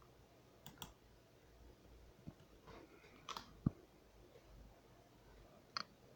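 Quiet room with a few scattered sharp clicks and taps, about half a dozen, the loudest about three and a half seconds in.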